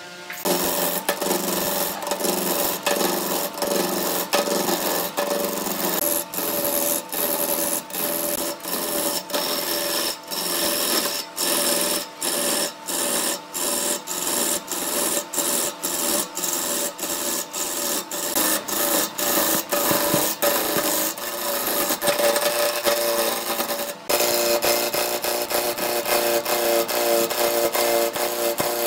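A turning tool cutting the corners off a square glued-up wood blank spinning on a lathe: a loud, rough cutting noise that starts about half a second in and is broken by many short gaps all through.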